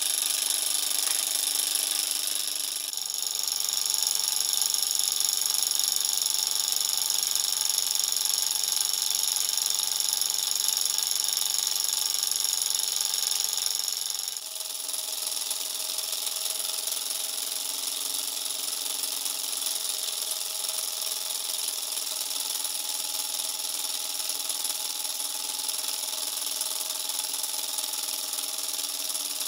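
Miniature stainless-steel and brass Stirling hot-air engine running fast and steadily, a light, even mechanical whir that sounds like a sewing machine. Its tone shifts about three seconds in and again about halfway through.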